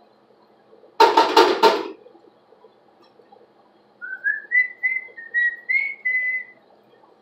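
A woman whistling a short tune of about eight quick notes that climb in pitch and then hold level, in the second half. About a second in there is a louder clatter of several quick knocks lasting about a second.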